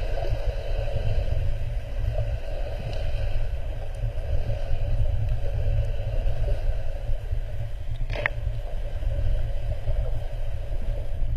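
Muffled underwater rumble heard through a GoPro's waterproof housing: a steady deep rumble with a wavering midrange drone over it, and one sharp click about eight seconds in.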